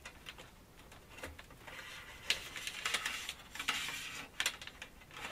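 Wires rustling and scraping as they are pulled through a hole in the side of a metal alarm-panel enclosure, with scattered small clicks and taps.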